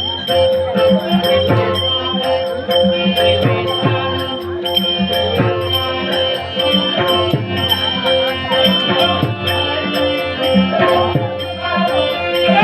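Dashavatar folk devotional music: a held, droning melody line over drum strokes and a fast, steady beat of small jingling cymbals.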